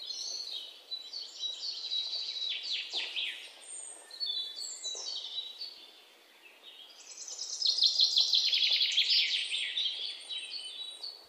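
Birds chirping and twittering in quick, overlapping calls. There is a lull about six seconds in, then a run of fast trills.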